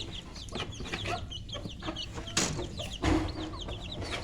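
Aseel chickens clucking, with many short high peeps running throughout and a few knocks, the loudest a thump a little after three seconds in.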